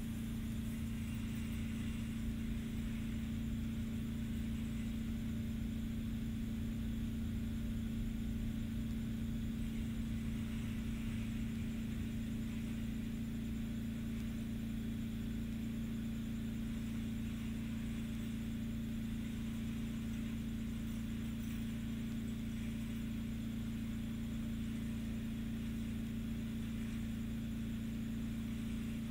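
A steady machine hum on one low pitch, unchanging throughout, over a faint hiss.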